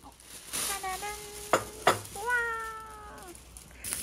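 Two drawn-out pitched calls: a shorter one about a second in, then a longer one that falls off at its end, with two sharp clicks between them.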